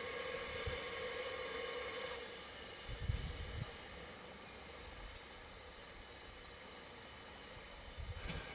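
C12 steam tank locomotive standing with steam up: a steady hiss, with a whine over it that cuts off about two seconds in, leaving the hiss and scattered low rumbles.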